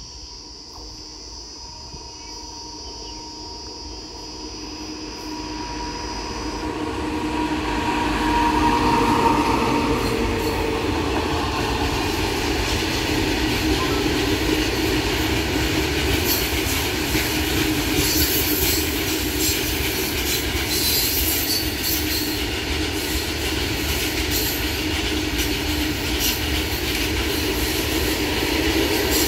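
Heavy coal-loaded freight train behind a WAG-9 electric locomotive approaching, growing steadily louder over the first eight or nine seconds, then its loaded wagons rolling past in a steady rumble and rattle of wheels on rail. From about halfway through, rapid clicks of wheels over the rail joints come through.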